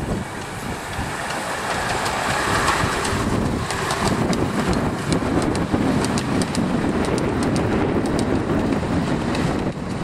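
Miniature-gauge steam locomotive and its train of open passenger wagons running past close by, the wagon wheels clicking sharply over the track in the second half.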